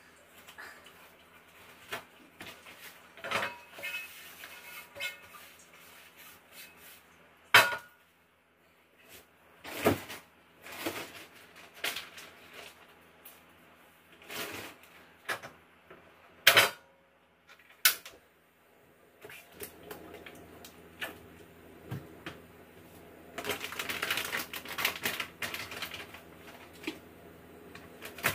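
Tabletop kitchen handling: irregular clicks and clinks of chopsticks and utensils against a bowl and dishes, with a few sharper knocks of things set down on the table. Near the end, a few seconds of dense crinkly rustling.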